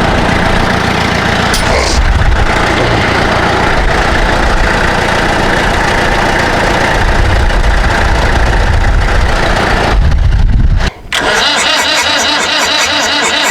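Starter cranking the freshly rebuilt diesel engine of a 444 tractor, which is not yet firing cleanly. About eleven seconds in the sound cuts out briefly, and an even, faster pulsing follows.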